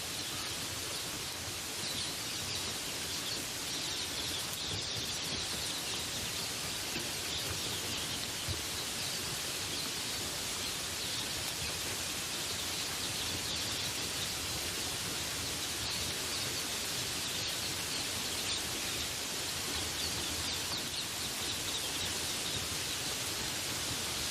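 Steady rain falling, an even hiss with no breaks, with faint bird calls in it.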